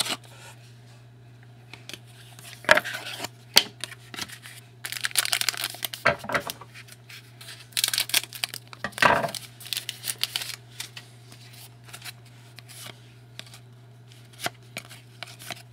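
Trading card pack wrappers being torn open and crinkled, with scattered clicks and rustles of cards being handled. A steady low hum runs underneath.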